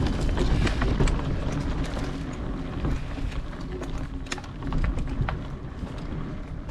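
Wind rumbling on the microphone of an action camera moving along a dirt trail, with scattered clicks and rattles from the ride.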